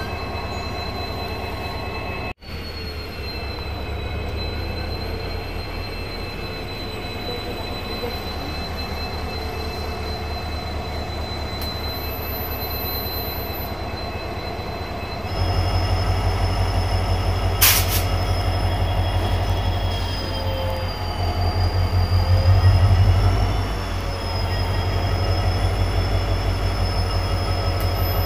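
Diesel locomotive creeping forward at low speed: a steady, throbbing low engine rumble with thin, high whining tones above it. It gets louder about halfway through, with a single sharp clank a couple of seconds later and a brief swell near the three-quarter mark.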